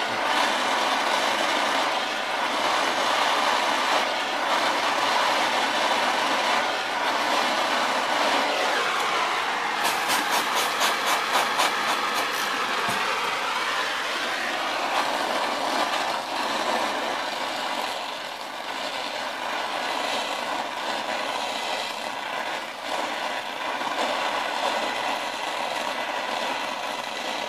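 Oxyacetylene torch flame hissing steadily as it heats a steel rod on a bending jig. A short burst of rapid ticking comes about ten seconds in.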